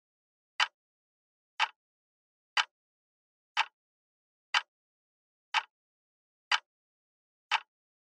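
Clock-tick sound effect: one short, sharp tick each second, marking the seconds of a countdown timer, with dead silence between ticks.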